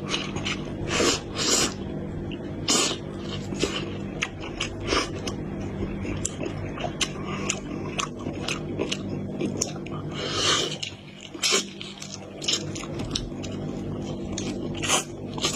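Close-up eating sounds: a person biting into and chewing meat-filled dumplings, with irregular wet mouth clicks and smacks over a steady low background hum.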